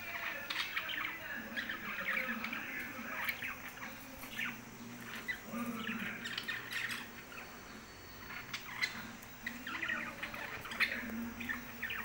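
A group of budgerigars chattering: a continuous run of short chirps and warbling calls, several birds at once.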